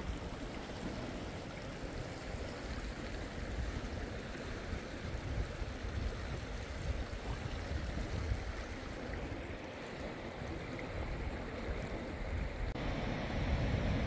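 A river rushing steadily over rocks, with wind buffeting the microphone as a low, uneven rumble. Near the end the sound changes abruptly: less hiss, more low rumble.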